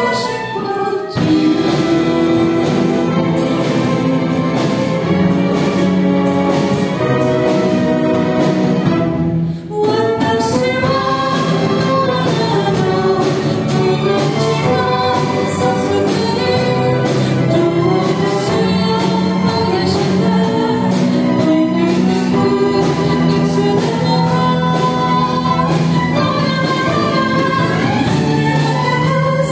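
Live string orchestra and choir with female lead vocals performing an orchestral arrangement of an anime theme song, with short breaks between phrases about a second in and near ten seconds.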